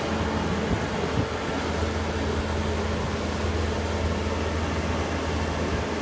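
Bobcat skid-steer loader's diesel engine running steadily at high revs while the machine pivots on two wheels, a constant drone without rising or falling.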